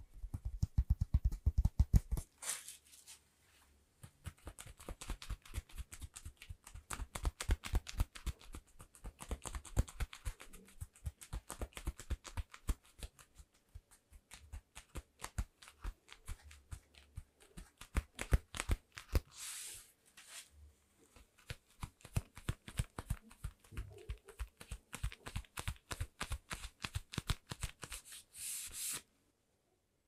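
Fast, close-miked ASMR tapping and rubbing by gloved hands on and around a microphone: many quick taps a second in long runs, broken by short pauses about three seconds in, about twenty seconds in, and just before the end.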